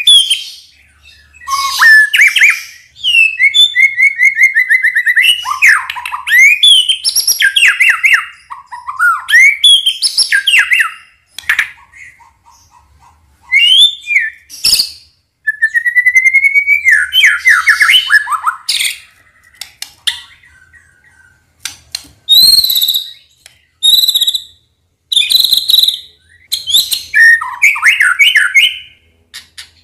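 White-rumped shama singing a loud, varied song of whistles, rising glides and rapid trills in bursts broken by short pauses. It is a shama lure song (pancingan), the kind played to provoke other shamas into singing.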